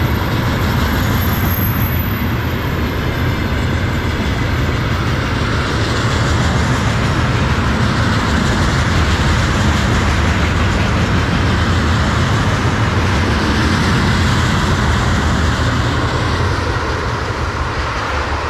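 Freight train of railway tank cars rolling past close by: a loud, steady rumble of wagon wheels on the rails, easing a little near the end as the train moves away.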